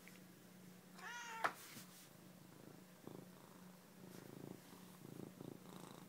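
A domestic cat gives one short, high meow about a second in, cut off by a sharp click. From about four seconds in it purrs quietly close to the microphone.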